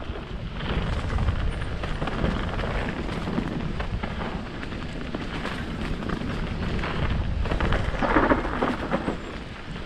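Mountain bike riding down a dirt forest singletrack: a dense low rumble of tyres over dirt and roots, with many small knocks and rattles from the bike, picked up by a bike- or body-mounted camera.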